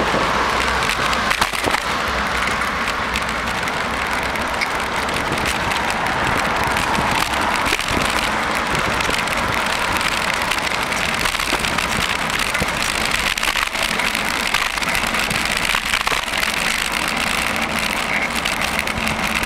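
Steady road noise heard from a bicycle riding through city traffic: an even hiss with a few small clicks and knocks scattered through it.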